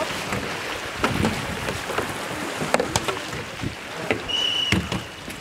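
Kayaks and paddles splashing and churning the water during canoe polo play, with several sharp knocks of paddles and hulls clashing. A little past four seconds in, a short referee's whistle blast.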